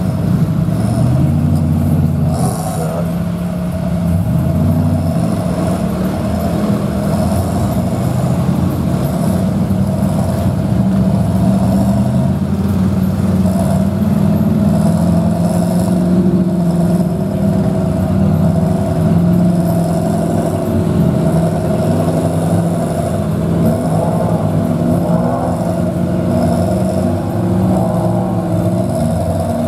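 Engine of a lifted GMC mega truck on tractor tyres running and revving up and down under load as it crawls through a mud hole.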